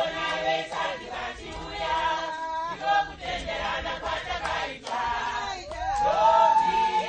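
A group of voices singing together in a choir-like song, with long held notes near the end.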